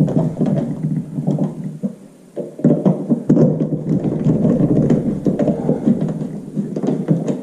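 Screws being driven to fasten a smoke detector mounting bracket: continuous grinding and scraping with many small clicks, with a brief pause about two seconds in.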